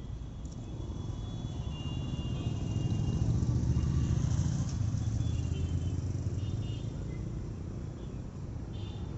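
A vehicle passing close by, its low engine rumble swelling to its loudest about three to five seconds in and then fading. Faint insect and bird chirps sound above it.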